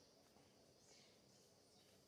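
Near silence: faint outdoor background, with a faint high sound about halfway through.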